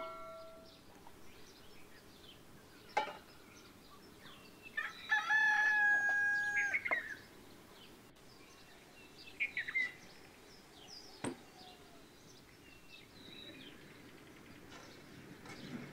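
A rooster crows once, a steady call of about two seconds beginning around five seconds in. Small birds chirp briefly later on, and there are two sharp knocks, one near three seconds and one near eleven.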